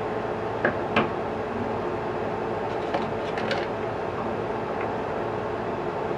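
A few light clicks and knocks from an alloy camera super clamp and its action-camera mount parts being handled, the loudest about a second in and a small cluster around three seconds in, over a steady background hiss.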